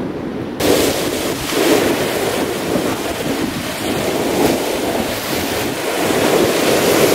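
Wind buffeting the microphone over sea surf washing on the shore. It starts abruptly about half a second in, then goes on loud and surging.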